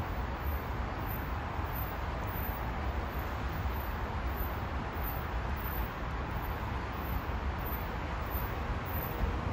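Steady low rumble and hiss of railway station ambience, with a train approaching in the distance.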